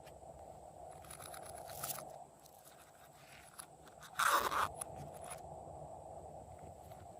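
Slime being worked by hand with crunchy add-ins mixed through it, giving small crackling, crunching clicks. A louder crunch comes about four seconds in.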